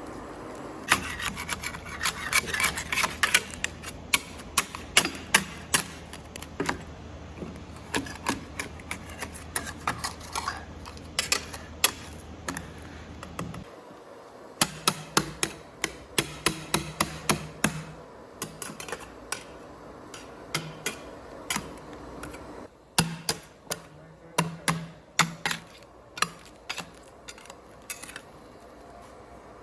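Quick, irregular runs of sharp knocks and clicks from hand work on hard candy during candy making, with short pauses between runs. A low steady machine hum underneath stops about halfway through.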